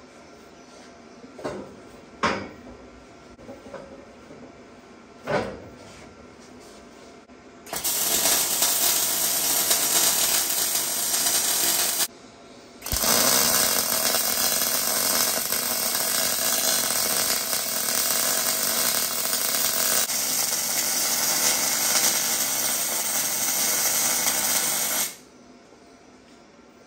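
A few light knocks, then a MIG welder running two weld beads on the steel bracing of an axle diff housing: a steady crackling hiss for about four seconds, a brief break, then a longer run of about twelve seconds that stops abruptly.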